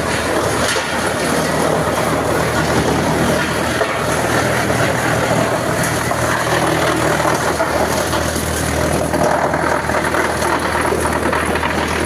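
Small wood-cutting machine running steadily: a continuous low motor hum under even mechanical noise.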